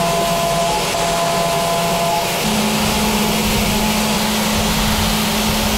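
SYIL X5 CNC mill cutting heat-treated 4140 steel with a small end mill: a steady hiss of machining noise over the spindle's hum. A lower steady hum joins about two and a half seconds in.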